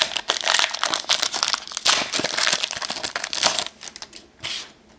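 Wrapper of a Panini Brilliance basketball card pack crinkling as it is torn open and crumpled by hand, stopping about three and a half seconds in.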